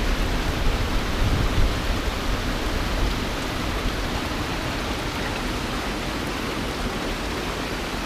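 Water rushing steadily through a wooden flume, an even hiss, with some extra low rumbling in the first few seconds.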